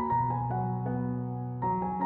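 Background music: soft piano or keyboard holding a chord over a low bass note, with new notes coming in near the end.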